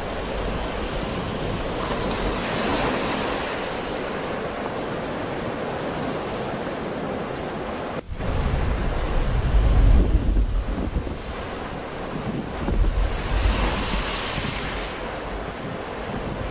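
Sea waves breaking and washing ashore in a steady surging hiss, with wind buffeting the microphone as a low rumble. The sound cuts out for an instant about halfway through, after which the wind rumble is heavier.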